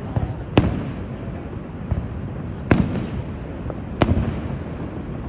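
Fireworks bursting: three loud bangs, about half a second in, near the middle and about four seconds in, each trailing off in a rumbling echo, with a couple of fainter pops between them over a steady low rumble.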